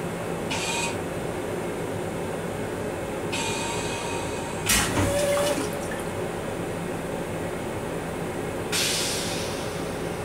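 M7 railcar toilet flushing: bursts of hissing rinse water, then a sudden loud whoosh about four and a half seconds in as the bowl drains, and another hiss near the end. A steady hum from the running train lies underneath.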